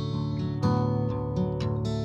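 Background music led by guitar, with plucked notes and chords.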